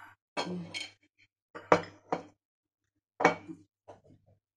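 Glassware clinking and knocking on a marble countertop as a glass pudding bowl with a spoon in it and a stemmed serving glass are handled and set down. There is a short scrape in the first second, then a few sharp clinks, the loudest near the middle and a little past three seconds in, with faint ticks near the end.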